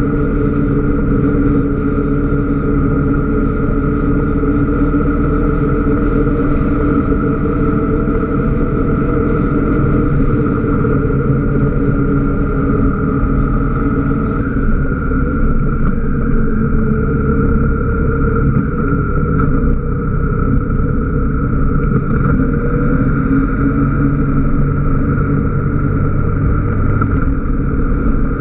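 Motorcycle engine running steadily at cruising speed, heard from a camera mounted on the bike, its pitch shifting slightly about halfway through.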